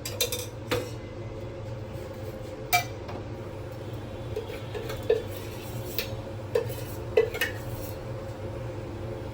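Metal spoon clinking and knocking against pans and containers, about eight scattered clinks, with a steady low hum underneath.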